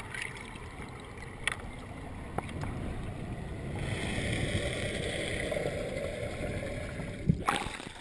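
Muffled underwater noise through an action camera's housing as it rises with freedivers: a low rumble with scattered clicks, and a rushing hiss of water that swells about halfway through. Near the end there is a sharp splash as the camera breaks the surface.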